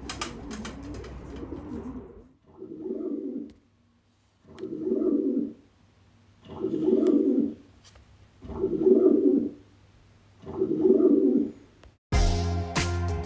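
Domestic pigeon cooing: five low coos, each about a second long, spaced about two seconds apart. Music starts abruptly near the end.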